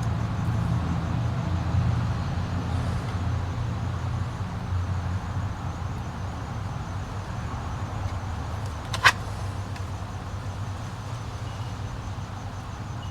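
A steady low hum that slowly fades, with one sharp click about nine seconds in.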